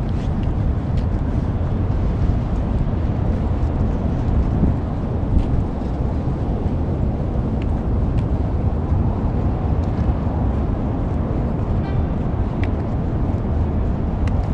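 Strong wind buffeting the microphone as a steady low rumble, with a few faint ticks.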